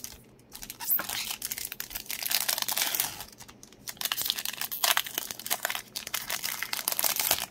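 Foil wrapper of a Pokémon Battle Styles booster pack crinkling as it is torn open by hand and the cards are slid out. The crinkling comes in two stretches, about a second in and again from about four seconds, and cuts off suddenly near the end.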